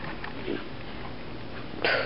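Siberian husky sniffing, with a short, sharper sniff near the end.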